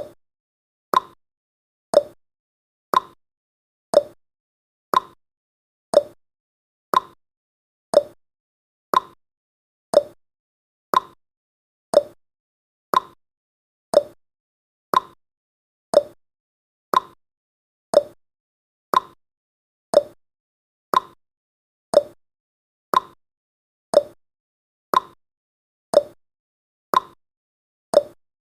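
Countdown timer's clock-tick sound effect, one sharp tick every second, alternating between a higher and a lower tick like a tick-tock.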